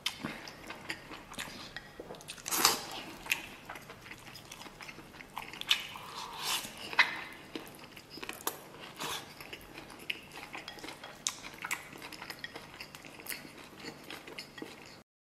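Close-up eating sounds of a person chewing braised cow hoof and rice, with many short clicks of wooden chopsticks against a porcelain bowl. The sound cuts off abruptly near the end.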